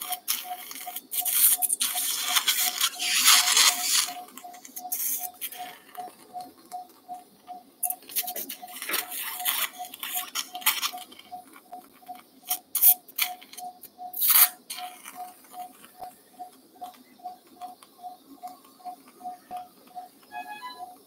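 Anaesthesia monitor beeping steadily at about three short, even beeps a second, the pulse-tone of the anaesthetised dog's heartbeat. Over it, rustling and clicking from handling in the surgical field come and go in louder stretches.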